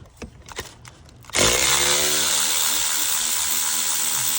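A few light metallic clicks, then about a second and a half in a cordless power tool starts, its motor spinning up and then running steadily as it backs out the 8 mm valve cover bolts.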